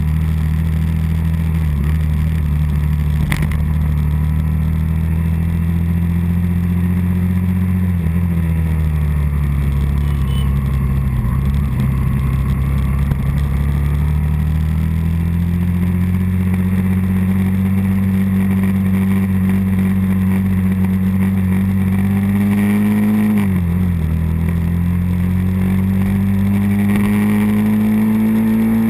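Early-1980s Suzuki 125 motorcycle engine running under way. Its pitch sinks as the throttle eases around eight to twelve seconds in, then climbs steadily, with a quick dip and recovery about three quarters of the way through.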